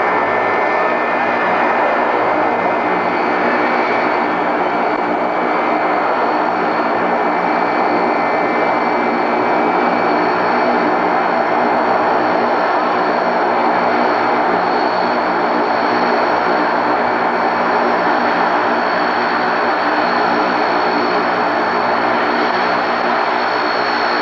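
Ilyushin Il-18's four Ivchenko AI-20 turboprop engines running as the airliner taxis, a steady loud drone with high, even whining tones over it.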